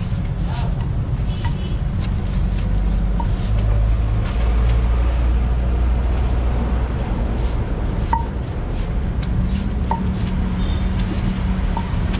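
Stone pestle and spatula working wet shredded fruit and sauce around a stone mortar, with a short wet scrape roughly every half second. A steady low rumble of traffic runs underneath and is the loudest sound.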